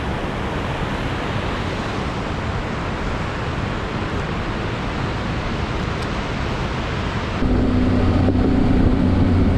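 Wind rushing over the camera microphone with road noise from a Honda Transalp 600 motorcycle on the move. About seven seconds in, it turns into a louder, steady hum from the bike's V-twin engine.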